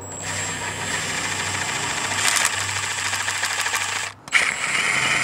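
Milwaukee 3/8-inch stubby cordless impact wrench zipping already-loosened transmission pan bolts out. It runs for about four seconds, stops briefly, then starts again on the next bolt.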